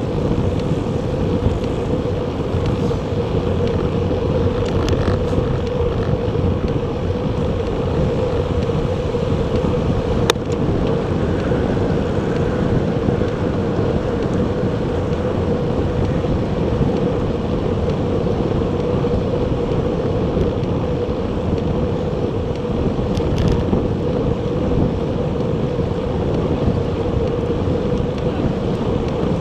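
Wind rushing over an action camera's microphone on a moving recumbent bicycle, a steady noise with a constant mid-pitched hum. There is one sharp click about ten seconds in.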